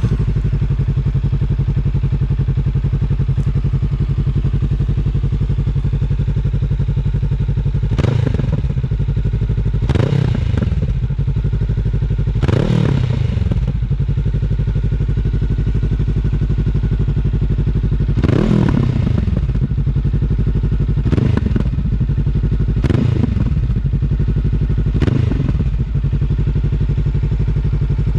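Honda CB500X's 471 cc parallel-twin engine idling through a Scorpion Serket Taper slip-on exhaust, with about seven short throttle blips, each rising and falling back to idle, spread through the second two-thirds.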